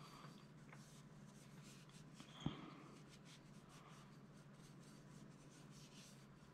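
Faint scratchy rubbing of an oiled cotton patch being wiped along the outside of a steel pistol barrel and chamber, with one sharp tap about two and a half seconds in.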